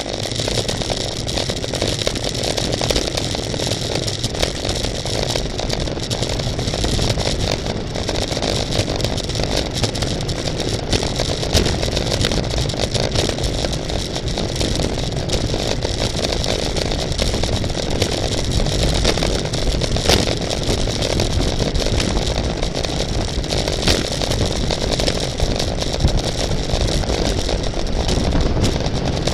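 Steady wind rush and road noise on a camera riding with a racing bicycle, with a low rumble and a hiss from the tyres and drivetrain.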